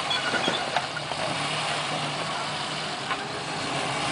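Off-road vehicle engine running steadily under a rushing noise, with a few short knocks and clatters.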